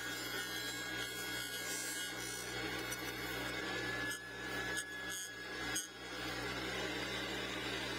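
Juiceman Jr. juicer's electric motor running steadily while sandpaper is held lightly against its spinning plastic hub, a rasping sanding sound over the motor's hum.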